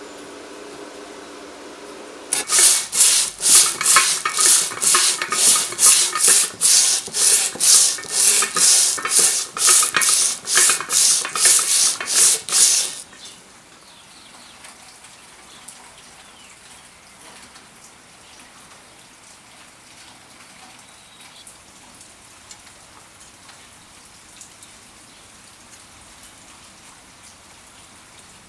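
Hand tool scraping back and forth in rhythmic strokes, about two a second, for roughly ten seconds, then stopping. The strokes are typical of scrubbing or filing at a rusty exhaust part.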